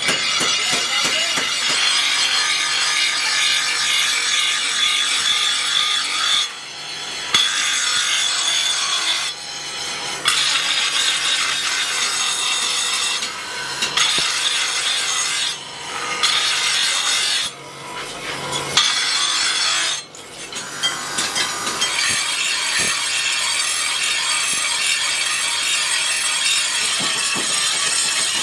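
Steel cleaver blank being ground against a spinning abrasive grinding wheel: a steady, high grinding rasp, broken by about six short pauses.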